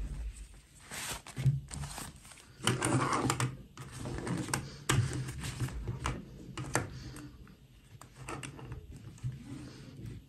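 Handling noise from a fashion doll in a fabric dress being turned in the hands and laid down on a table: rustling cloth with irregular light taps and clicks.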